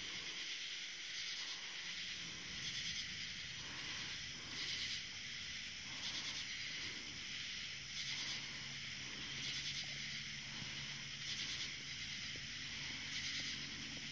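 Night insect chorus, high-pitched and swelling in regular pulses about every second and a half.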